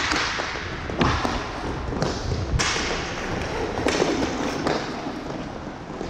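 Inline hockey play: sticks and puck knocking several times, sharp clacks and thuds, over a steady rumble of skate wheels on the rink floor.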